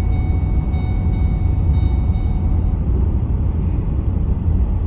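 Car on the move at highway speed, heard from inside the cabin: a steady low road-and-engine rumble.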